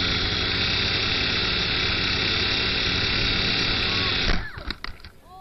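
LaTrax Alias micro quadcopter's motors buzzing steadily, then cutting off abruptly with a sharp knock just over four seconds in, followed by a few faint clicks: the drone has lost its controller signal and dropped out of the sky.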